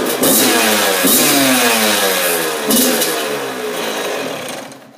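Yamaha dirt bike engine running, revved in two short blips about one and nearly three seconds in, its pitch sinking steadily until it dies away at the end.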